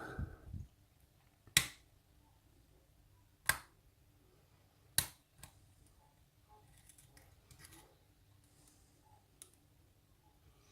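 Lock pick and tension wrench working the pins of a challenge lock: three sharp metallic clicks about a second and a half to two seconds apart, then faint scratching and ticking of the pick in the keyway.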